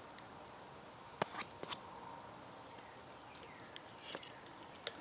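Quiet outdoor background with a few faint, scattered clicks.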